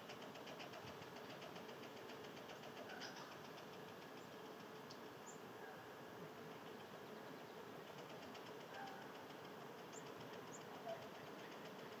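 Faint backyard ambience: a rapid, fine pulsing buzz over a steady low hum for the first few seconds, with a few short high bird chirps scattered through.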